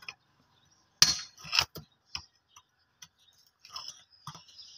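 Hand tools knocking and clinking against stones and broken concrete around a PVC water pipe. The strikes are sharp and irregular, the loudest pair about a second in, then lighter taps.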